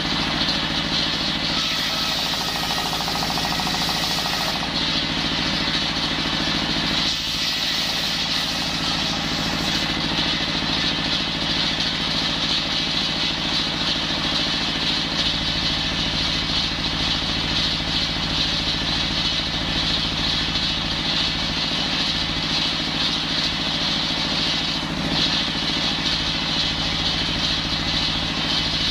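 Engine-driven circular saw (a brush cutter fitted with a saw blade) running steadily while cutting wood, its small engine holding a constant speed with a continuous high whine from the blade.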